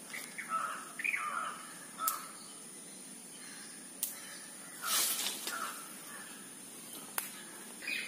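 Crows cawing, several harsh caws in the first two seconds and more around five seconds in, with a few sharp clicks between them.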